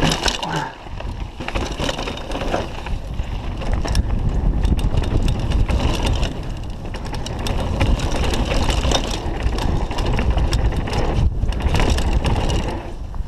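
Downhill mountain bike ridden fast on a dirt trail, picked up by a chest-mounted camera: tyres crunching over packed dirt and loose stones, and the bike rattling with many small clicks over a steady low rumble. The noise drops out briefly twice near the end.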